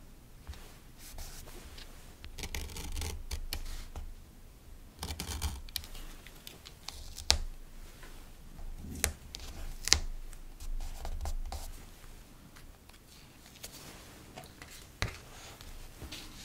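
Hands handling paper and sticker sheets on a desk. There are short bursts of rustling and scratching, and a handful of sharp clicks and taps in the middle and once more near the end.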